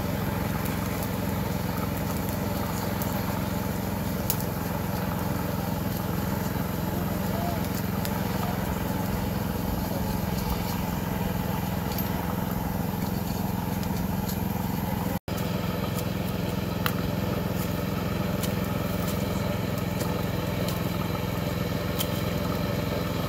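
A small boat's engine running steadily at an even speed. The sound cuts out for an instant about fifteen seconds in, then carries on unchanged.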